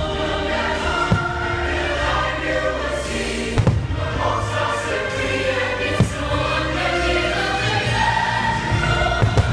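A choir singing sustained, hymn-like music, with a few short sharp thumps, the clearest about three and a half and six seconds in.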